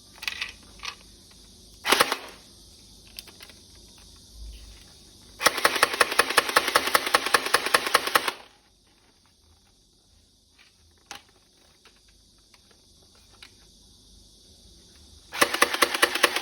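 Toy M416 assault rifle being handled with a few clicks, then firing in full auto: a rapid, even rattle lasting about three seconds, starting again near the end.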